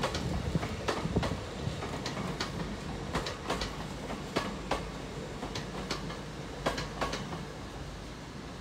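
LNER Azuma passenger train rolling into the station at low speed: its wheels click over rail joints and pointwork about twice a second, often in quick pairs, over a steady low rumble that fades a little near the end.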